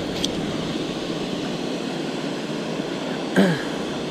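Steady rush of fast, churning river water below a dam. There is a short thump about three and a half seconds in.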